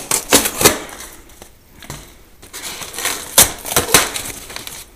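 Cardboard box being torn open by hand and styrofoam packing crunching and snapping as it is pulled apart: irregular sharp cracks, a cluster in the first second, a quieter stretch, then more snaps a little past the middle.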